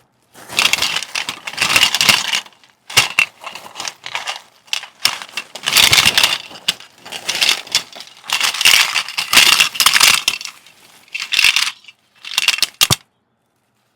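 Bursts of rustling and crinkling with sharp clicks and small knocks as objects are handled. The bursts come in several stretches and stop about a second before the end.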